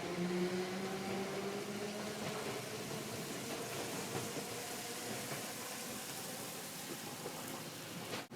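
Keifuku (Randen) tram pulling away: its motor whine slowly rises in pitch over the steady running noise, then fades. The sound cuts off abruptly just before the end.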